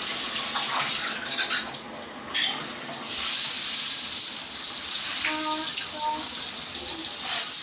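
Bathtub faucet running in a steady rush, growing fuller about two seconds in, as hair is rinsed under the stream.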